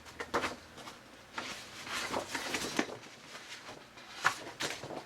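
Paper targets being handled and shuffled: a run of soft, irregular rustles and light scrapes.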